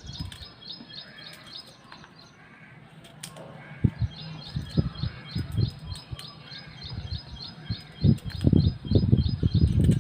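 A knife chopping coconut into small pieces on a cutting board: a few scattered knocks, then a quick run of chops in the last two seconds. Behind it a bird chirps in a steady, evenly spaced series from about four seconds in.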